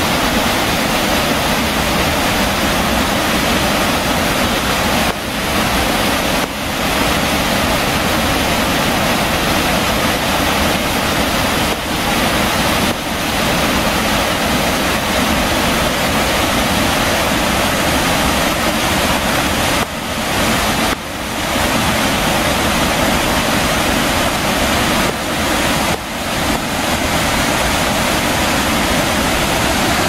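Steady, loud rush of a waterfall plunging onto rock and churning whitewater, dipping briefly a few times.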